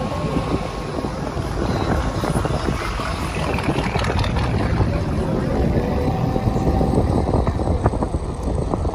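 Slow-moving car traffic: engines and tyres with a steady low rumble, mixed with wind buffeting the microphone.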